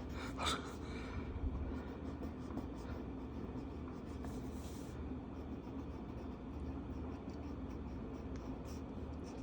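Felt-tip marker rubbing across paper as a colouring-book page is filled in: faint, scratchy strokes over a steady low hum.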